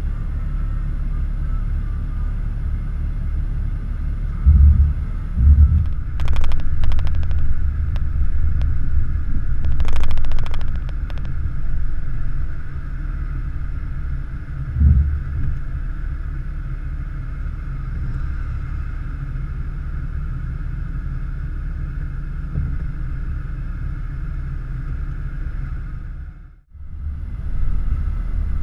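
Jeep Wrangler TJ engine running at low speed, with a steady low rumble. A few heavy thumps and rattles come as the Jeep works over rough ground. The sound cuts out briefly near the end.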